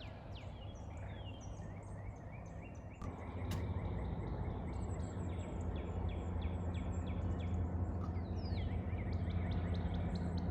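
Outdoor night ambience: many short, quick downward chirps from small animals repeat over a steady low rumble, which gets louder about three seconds in.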